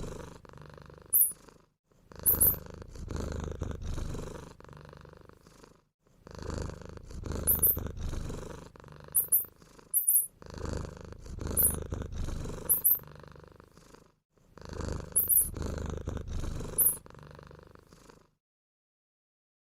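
Short, very high-pitched mouse squeaks in pairs and threes over a low, purr-like rumbling noise, the same few seconds repeating about every four seconds as a loop, then stopping a second and a half before the end.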